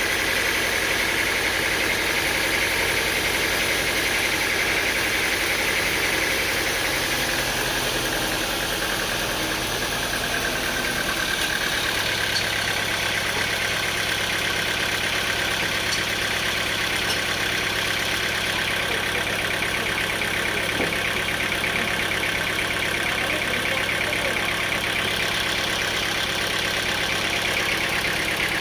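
Sawmill machinery running steadily, a continuous engine-like drone with a steady higher whine. Its low hum shifts about twelve seconds in.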